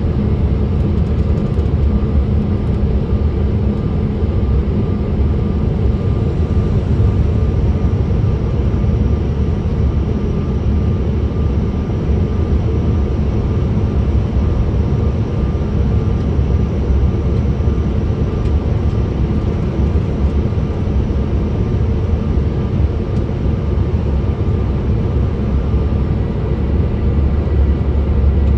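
Cabin noise inside a Bombardier CRJ900 airliner on approach: a steady, loud low roar of airflow and its rear-mounted General Electric CF34 turbofans, with a faint steady whine above it.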